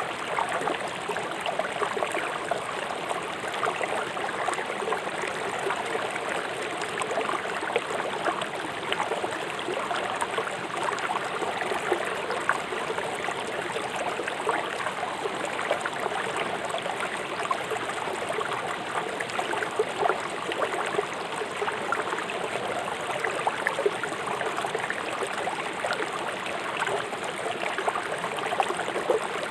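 A fast-flowing river rushing and splashing over rocks, a steady, unbroken water noise dotted with small splashes and gurgles.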